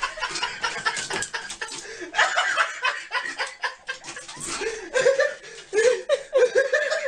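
A person laughing and snickering in bursts, loudest near the end, over many short knocks and clatters.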